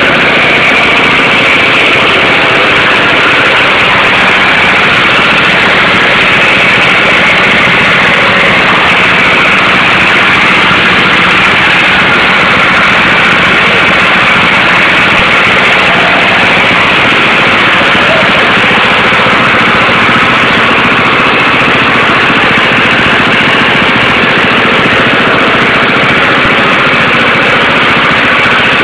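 Diesel engine running loudly at a steady speed, with no change in revs.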